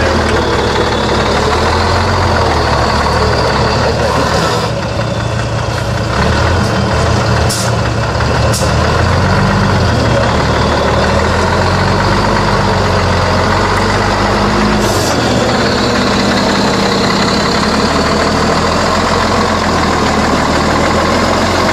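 LIAZ 706 truck's six-cylinder diesel engine working hard as the truck crawls through deep mud, its revs stepping up and down.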